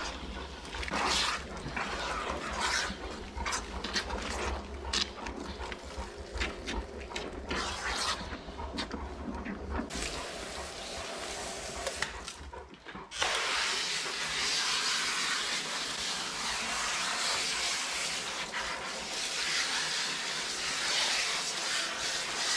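Water and shampoo spraying from a hose sprayer with a shampoo canister, set to a narrow center jet, into a dog's thick wet coat. Over the first half it comes with rubbing, clicks and knocks of hands and nozzle working the fur. A little after halfway it turns to a steady, even hiss of spray.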